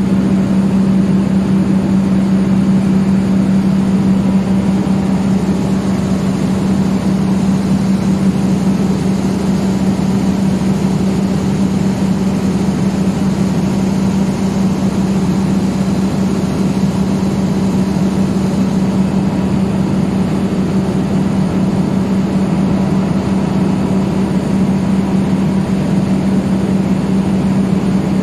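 Steady drone of running machinery with a strong, constant low hum, unchanging in pitch and level.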